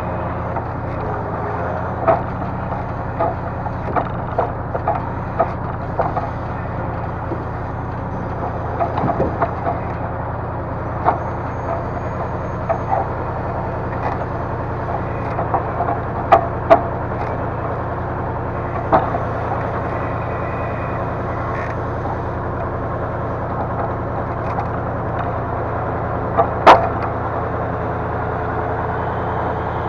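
Diesel engine running steadily to drive a timber truck's hydraulic log loader, with irregular wooden clunks and knocks as logs are gripped and dropped. The loudest knock comes near the end.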